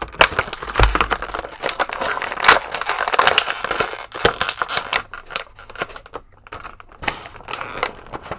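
Thin clear plastic packaging tray crinkling and crackling in irregular bursts as an action figure is pried and pulled out of it, with a low thump about a second in.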